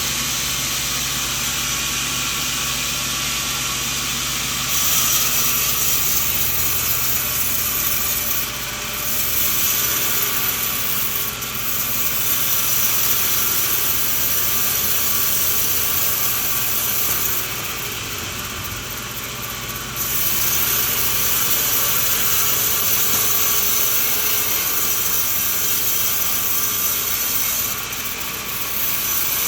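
Sawmill running and sawing through a coconut log, a loud steady machine noise with a strong hiss. It steps up about five seconds in and drops back briefly a few times, longest for a couple of seconds past the middle.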